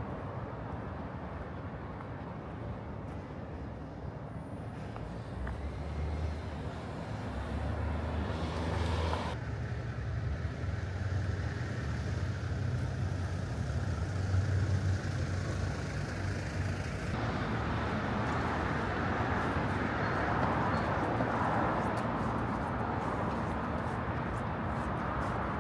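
Road traffic on a wide city boulevard: a steady hum of cars and trucks passing, with a deeper engine rumble through the middle and louder traffic noise near the end.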